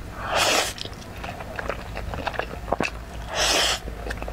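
Slurping of spicy instant noodles (buldak fire noodles) drawn into the mouth from chopsticks: two loud slurps about three seconds apart, with small wet chewing clicks between.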